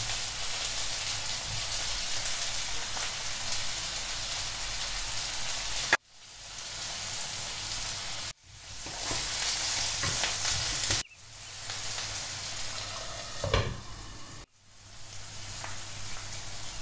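Baby potatoes and onions frying in a nonstick pan, giving a steady sizzle. The sizzle cuts off suddenly and fades back in several times.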